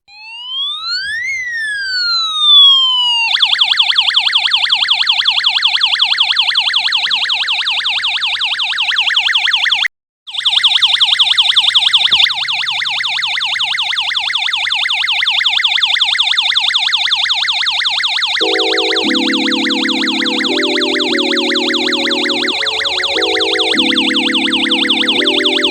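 Electronic police-siren tone from a UM3561 siren chip driving a small speaker. It gives one slow rising-and-falling wail, then switches to a rapid warble. The sound cuts out for a moment about ten seconds in and resumes. Near the end, lower stepped musical notes play under it.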